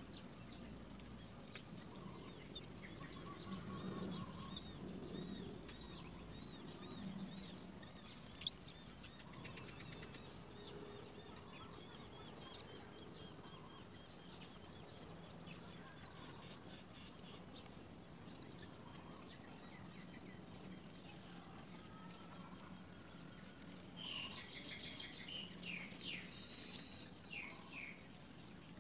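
Birds chirping around a nest over faint outdoor background. A soft high trill runs through the middle, then a quick series of short, sharp high chirps, about two a second, fills the last third.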